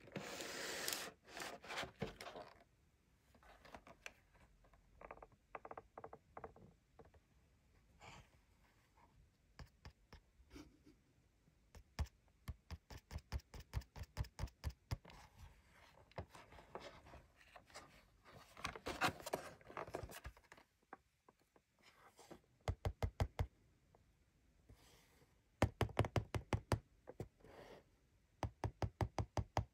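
Fingers tapping and handling a toy's plastic blister pack and card backing: runs of quick light taps, several a second, with crinkling and scraping of the plastic in between.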